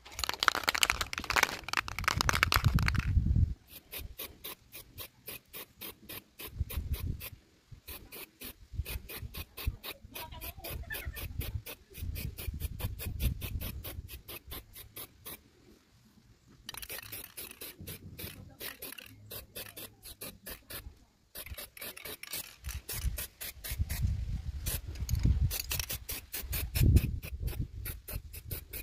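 Aerosol can of high-temperature matte black spray paint hissing in bursts as it is sprayed onto a motorcycle engine's cylinder and cases, the longest and loudest burst in the first three seconds.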